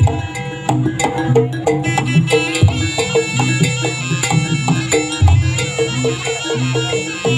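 East Javanese jaranan ensemble music: a shrill reed-pipe melody, most likely the slompret, over hand-drum strokes and a quick, steady pattern of repeating pitched percussion notes.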